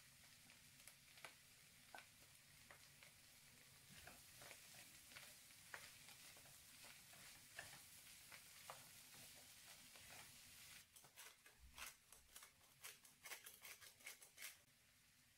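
Faint sizzling of a chicken, carrot and vermicelli filling frying in a non-stick pan, with a wooden spoon stirring and tapping against the pan. Near the end there is a quicker run of clicks that stops suddenly.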